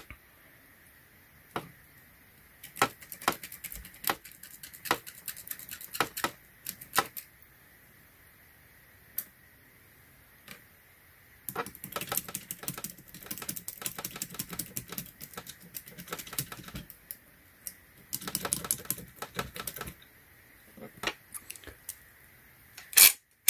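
The Club steering wheel lock being handled and worked with lock picks: scattered clicks, then two long stretches of rapid clicking and rattling, and one sharp, louder click near the end.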